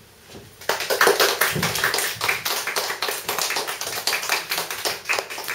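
Small audience applauding, starting suddenly about a second in and carrying on as quick, dense clapping.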